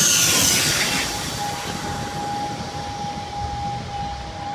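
LIAT ATR twin-engine turboprop airliner passing low overhead on landing and moving away. It is loudest in the first second, with a falling pitch, then fades to a steady whine over a low rumble.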